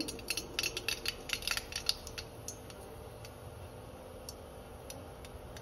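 Mustard seeds crackling and popping in hot oil as a tempering (tadka): a quick run of sharp pops over the first two seconds, thinning to occasional pops after that.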